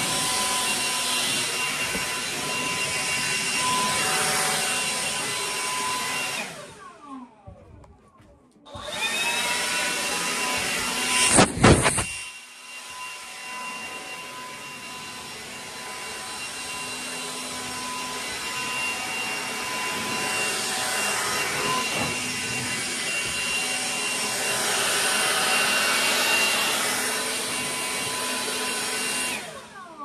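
DeWalt 20V brushless cordless leaf blower running, a steady rush of air with a motor whine, blowing sawdust off a sawmill's rails and bed. About seven seconds in it spins down and stops, then spins back up a couple of seconds later, with a brief louder blast soon after.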